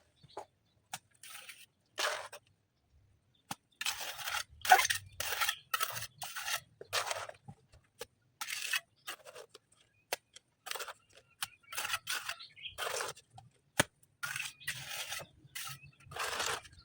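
Irregular strokes of scraping on stone and mortar, each under half a second long, with a few sharp clicks between them.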